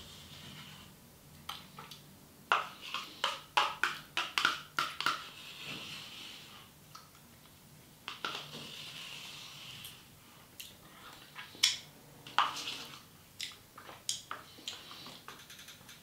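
A spoon clicking and scraping inside a small plastic dessert cup while eating, in two runs of quick clicks with quieter scraping between them.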